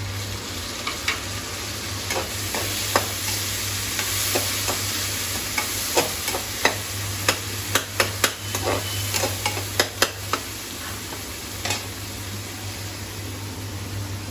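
Chopped tomatoes sizzling in hot ghee in a metal kadai as a metal spoon stirs them, clinking and scraping against the pan; the clinks come thickest between about five and ten seconds in. A steady low hum runs underneath.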